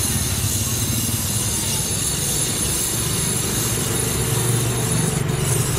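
Gas brazing torch flame burning steadily while copper tubing is brazed onto a refrigerator compressor, over a steady low rumble that swells a little about four and a half seconds in.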